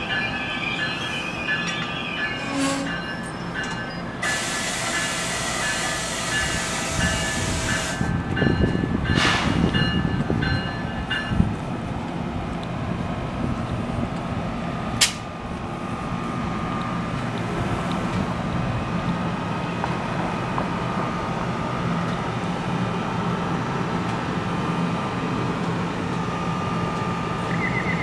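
NJ Transit commuter train, an ALP-46A electric locomotive with bi-level coaches, getting underway from the station with a steady electric hum. A loud hiss starts about four seconds in and lasts about four seconds, and there is a sharp click near the middle.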